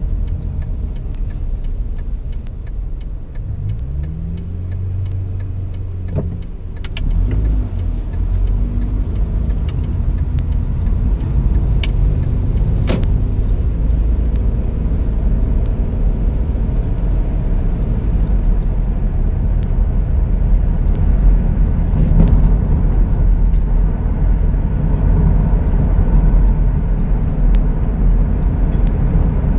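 Car driving on the road, with a steady low engine and tyre rumble picked up by a car-mounted phone. A short rising engine note comes about three seconds in, and the rumble grows louder and steadier from about seven seconds in as the car picks up speed.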